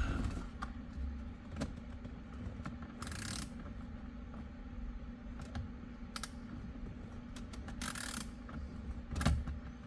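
Light metallic clicks and rattles from a T30 Torx socket and ratchet being worked behind a steering wheel, feeling for the airbag bolt's thread. There are two short ratcheting bursts, about three seconds in and near eight seconds.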